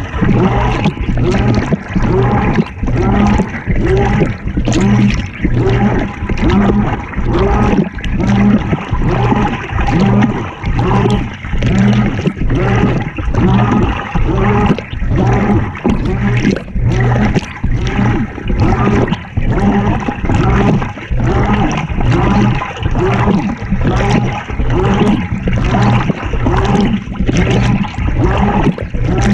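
GE top-loading washing machine agitating a load: water and laundry slosh and churn in a regular back-and-forth surge a little more than once a second over a steady motor hum, heard from inside the tub.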